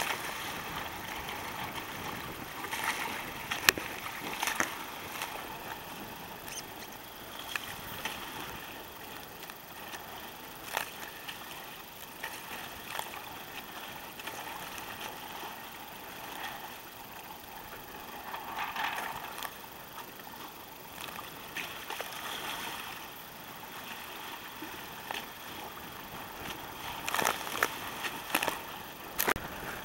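Water splashing and sloshing against a sea kayak paddled through rough, choppy water, over a steady rushing hiss. A few sharp knocks come now and then, several near the end.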